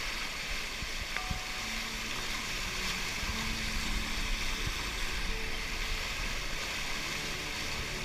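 Rushing water of a waterfall pouring down a rock chute into a pool, a steady even hiss.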